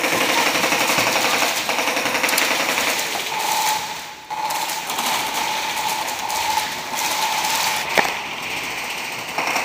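Airsoft guns firing in rapid full-auto bursts, with a short break about four seconds in. A steady whine runs under the middle stretch.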